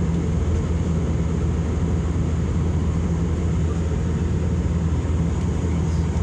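Steady low drone of an airliner cabin in flight: engine and airflow noise heard from inside the passenger cabin.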